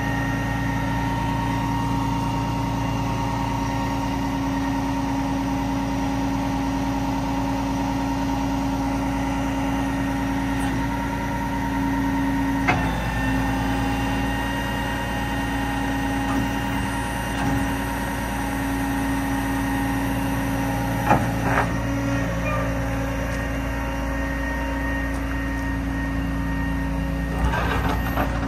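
Heavy truck's 12.5-litre Cat diesel running steadily at idle with a steady whine over its rumble, with a few short clicks and clunks near the middle and near the end.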